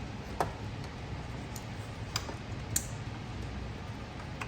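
Hand tools clinking on metal in a car's engine bay: about four sharp clicks, the first with a short ring, as a Torx socket is tried on a bolt. A steady low hum sits underneath.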